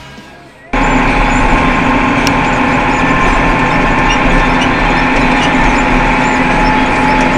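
The tail of fading music, then an abrupt cut to a Massey Ferguson tractor's diesel engine running steadily at constant speed, heard from inside the cab while driving.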